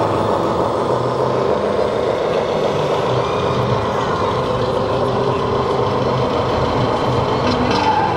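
Simulated diesel truck engine sound from the sound modules of 1:14-scale RC model trucks, running steadily, over the general din of a busy hall.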